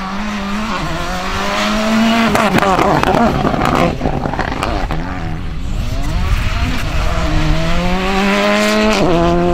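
Volkswagen Polo GTI R5 rally car's turbocharged four-cylinder engine accelerating hard, its pitch climbing. About three seconds in it lifts off and the pitch drops, then it climbs again on a second hard run and shifts up near the end.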